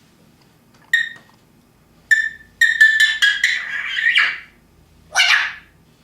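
Pet parrot whistling and calling: a short note, then a clear whistled note and a quick run of pulsed whistled notes, followed by a harsh squawk near the end.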